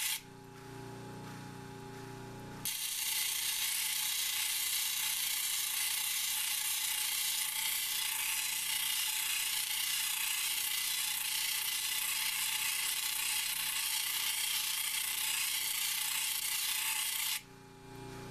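Labradorite stone held against a wet, spinning 100-grit diamond flat-lap disc, a steady grinding hiss as the cabochon's dome is shaped. Twice, near the start and near the end, the stone is lifted off and the hiss stops, leaving only the lap's motor humming.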